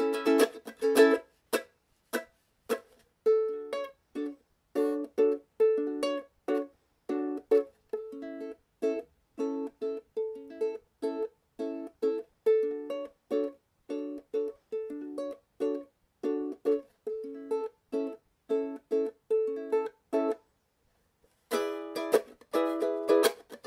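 Background music: plucked strings picking a steady pattern of notes. It breaks off for about a second near the end, then starts again.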